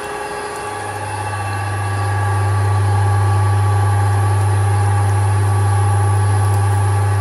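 GM-5000 Plus screw oil press running while pressing safflower seed: a steady mechanical hum with several steady tones. A strong low drone sets in about a second in and grows louder over the next two seconds, then holds.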